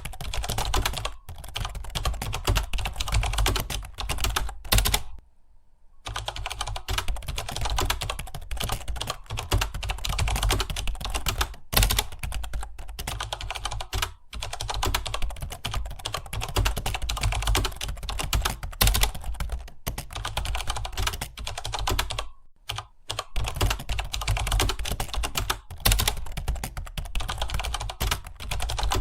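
Fast, continuous typing on a computer keyboard, a rapid stream of key clicks that pauses for about a second some five seconds in and briefly again later.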